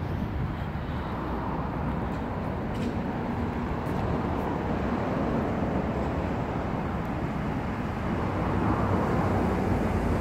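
Steady hum of road traffic from passing vehicles, growing a little louder near the end.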